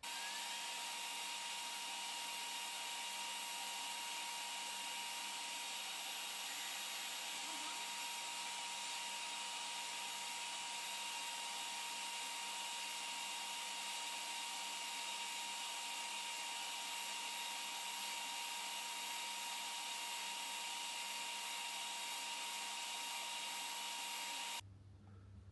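Surface grinder running steadily, its grinding wheel spinning with an even hiss and a few steady whine tones while the end of a fixture plate is ground square. The sound cuts off sharply near the end.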